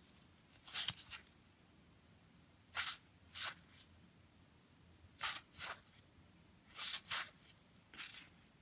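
Baseball trading cards sliding against one another as they are flipped through by hand: short papery swishes, often two close together, every second or two.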